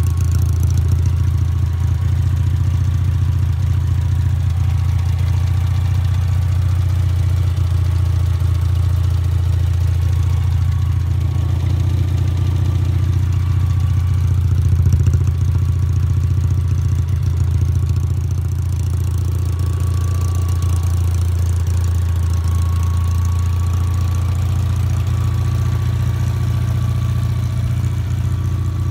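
Honda TN360 kei truck's 360cc two-cylinder engine idling steadily through its twin chrome exhausts, with a brief small rise in level about halfway through.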